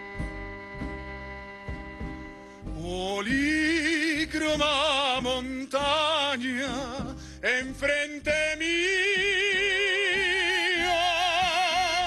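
A small string ensemble of violin, cello, guitar and double bass holds sustained chords. About three seconds in, a male singer slides up into his phrase and sings over the strings with wide vibrato, ending on a long held note.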